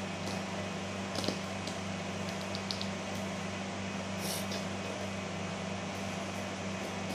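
A steady low mechanical hum, with a few faint crunches and clicks as a kitchen knife cuts around the core of a large cabbage head, about a second in and again between two and three seconds in.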